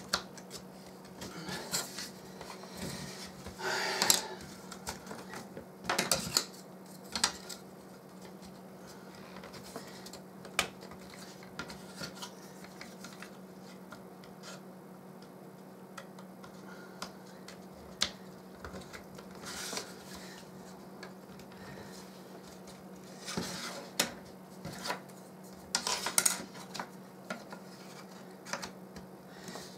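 Thin plywood kit pieces clicking, tapping and scraping against each other and a wooden tabletop as they are handled and slotted together. Small bunches of clatter come in the first few seconds and again about three-quarters of the way through, over a steady low hum.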